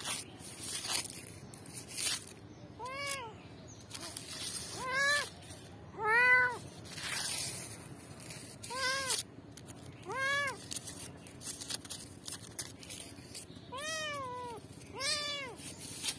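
Kittens mewing: about seven short, high calls, each rising then falling in pitch, spaced a second or more apart.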